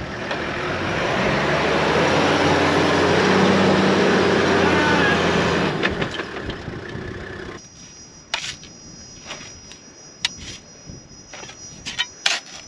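Toyota Land Cruiser HZJ79's 4.2-litre straight-six diesel revving under load as it tries to drive out of soft sand onto sand ladders, with a loud rush of noise over the engine. After about seven and a half seconds it cuts off abruptly to quiet ambience with a steady high insect trill and a few sharp clicks.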